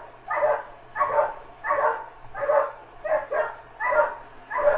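A dog barking over and over in an even rhythm, about seven barks, each a little under a second after the last.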